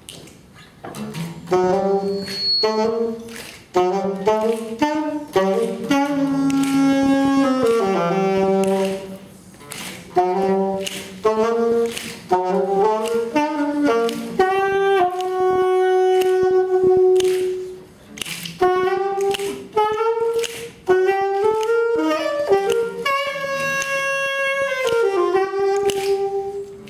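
Saxophone playing a melody over strummed acoustic guitar, starting about a second in. The saxophone holds long notes around the middle and near the end.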